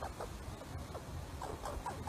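A squirrel calling: short, falling chirps repeated several times a second. They thin out in the middle and come quickly again near the end.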